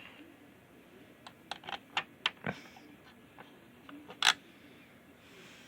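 Scattered small clicks and taps of plastic dash trim and DIC button-module parts being handled and fitted, a quick run of them in the first half and one sharper click about four seconds in.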